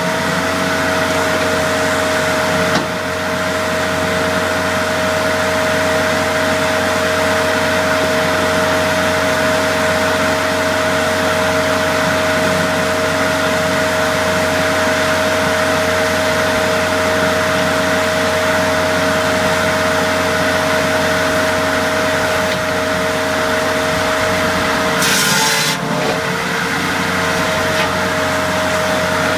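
Shinyoung 1620SS firewood processor running steadily, its power unit and hydraulics giving a constant mechanical hum with a steady whine. Near the end there is a brief burst of noise as the machine's tone wavers, then the steady running resumes.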